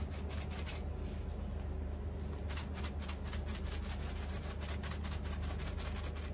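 Seasoning shaken from a plastic spice jar into a skillet: quick, irregular rattling ticks that grow denser about halfway through, over a steady low hum.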